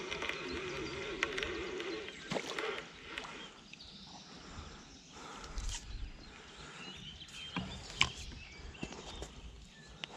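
A spinning reel being cranked for about the first two seconds, with a wavering, buzzy whirr as line is wound in. Then rustling and scattered sharp clicks as the rod is lifted and a small perch is swung in on the line, with one louder click about eight seconds in.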